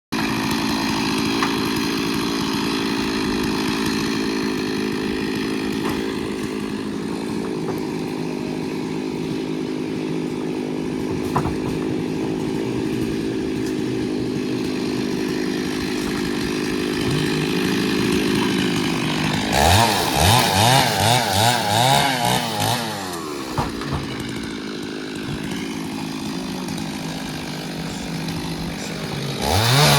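Chainsaw engine running at a steady pitch, then revved up and down several times in quick succession about two-thirds of the way in, settling lower before another rev near the end.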